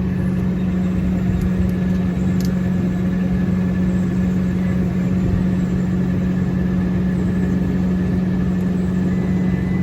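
Air conditioning package unit running, with a steady, unchanging hum.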